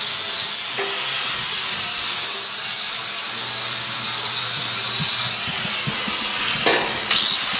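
Handheld angle grinder running against the steel frame rail of a 1937 Lincoln Zephyr, a steady high grinding hiss. It eases off briefly near the end, then bites in again.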